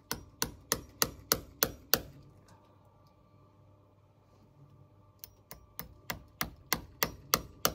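Hammer driving a galvanized fencing staple into a hard oak beam: a run of about seven quick sharp blows, about three a second, then a pause of about three seconds, then about nine more blows at the same pace.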